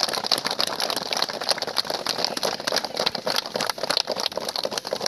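Crowd clapping, a dense, irregular patter of many hands.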